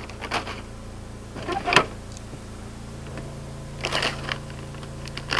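A plastic package of breakfast sausages crinkling and rustling in the hands in a few short bursts, over the steady hum of the boat's generator.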